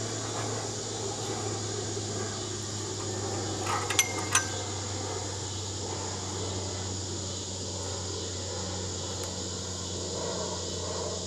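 Metal fittings of a yoga swing clinking against each other and the frame as the swing takes a person's weight: two sharp, ringing metallic clinks about four seconds in, over a steady outdoor hum.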